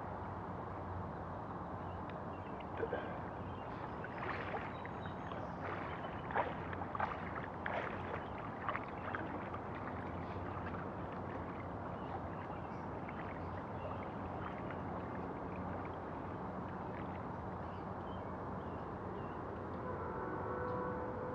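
Shallow floodwater splashing and lapping as something moves through it, with a cluster of sharp splashes a few seconds in, over a steady low rumble. A steady tone of several notes comes in near the end.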